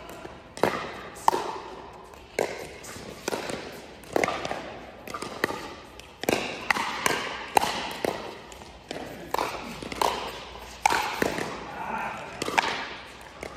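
Pickleball rally: the hollow plastic ball is struck by paddles and bounces on the hard court, giving sharp pops about one to two a second, each echoing briefly in a large indoor hall.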